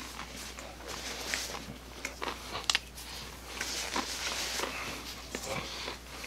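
Rustling of a paper napkin as gloved hands wipe clean, with a run of small sharp clicks and rubbing noises.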